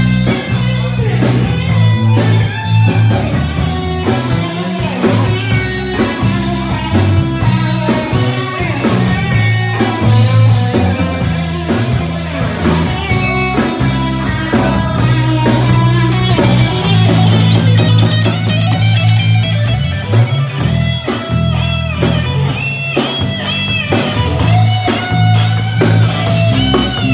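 Live band playing amplified rock-style music with electric guitar, bass guitar and drum kit, a strong bass line and steady drum beat throughout.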